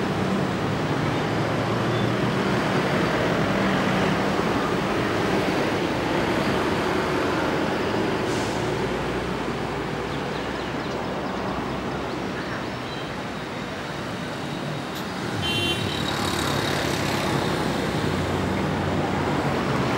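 Diesel locomotive running steadily while shunting a rake of passenger coaches. Its engine note rises about fifteen seconds in, with a short high squeal at the same moment.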